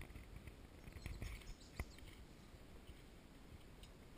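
Quiet outdoor ambience: faint low wind rumble on the microphone, a few faint bird chirps and a single light click about two seconds in.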